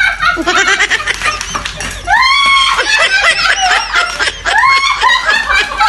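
Women laughing hard, with high-pitched shrieking squeals that rise and fall; a loud shriek of laughter comes about two seconds in.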